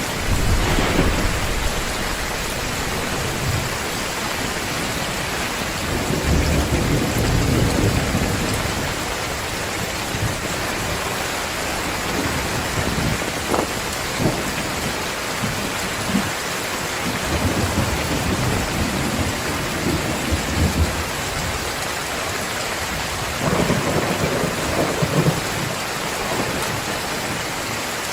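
Heavy rain falling steadily, with thunder rumbling low several times as it swells and fades.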